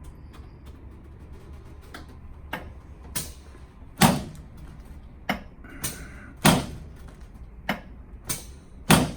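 A run of sharp knocks and clacks, irregular and roughly one every second, over a low steady hum. The three loudest come about four, six and a half and nine seconds in.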